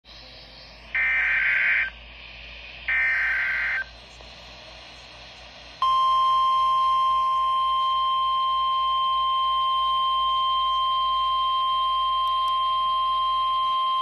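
NOAA Weather Radio alert signalling through a Midland weather radio's speaker. First come two buzzy bursts of SAME digital header data, each about a second long, which code the alert, here a Required Monthly Test. About six seconds in, the steady 1050 Hz weather alert tone begins and holds.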